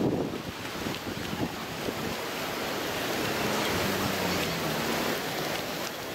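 Wind buffeting the microphone in gusts for about the first second, then a steady rushing outdoor noise of wind.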